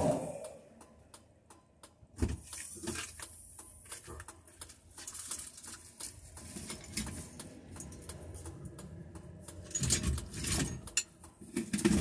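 Scattered light clicks and small rattles, with no steady machine sound.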